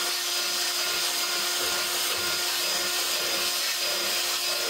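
Cordless drill running at a steady speed with a small Dremel-style bit spinning inside a rusty leaf-spring eye, grinding the rust out: an even motor whine over a scratchy grinding noise.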